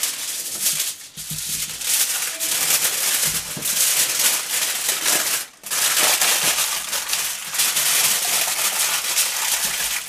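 Aluminium foil crinkling and crackling as it is folded and crumpled by hand around a pumpkin half, with two short pauses.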